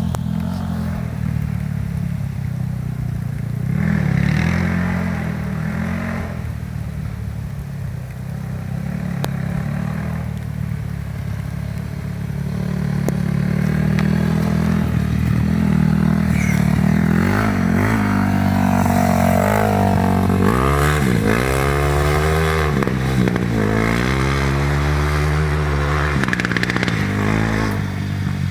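A 450cc single-cylinder four-stroke off-road engine running at low, steady revs, then from about halfway through revved up and down repeatedly in several rising and falling sweeps.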